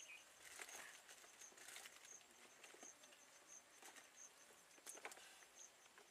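Near silence: faint outdoor ambience with a high insect chirp repeating about three times a second and a few soft clicks.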